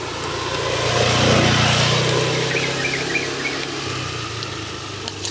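A motorbike passing by on the road, its engine hum swelling to a peak about a second in and then fading away.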